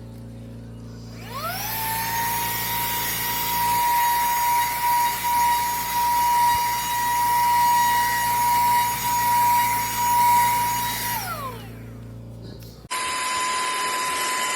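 SERVOMASTER cordless handheld vacuum switched on: its motor spins up with a rising whine, runs at a steady high pitch with a rush of air for about ten seconds, then winds down with a falling whine when switched off. Near the end a similar steady whine starts abruptly.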